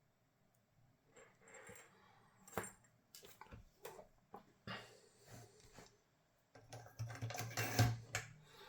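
Small clicks and clatter of tools and parts being handled on a workbench, starting about a second in and getting busier near the end, when a low hum comes in.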